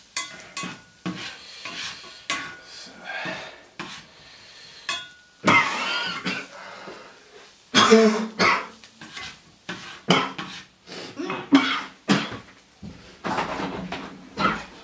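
A spatula scraping and knocking in a frying pan as fried potatoes and egg are stirred and turned, a run of irregular clicks and scrapes with a few louder knocks.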